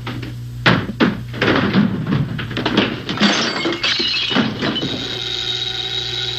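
Two sharp knocks, then a run of crashing and breaking sounds, as of objects being smashed. A steady held tone sets in about five seconds in.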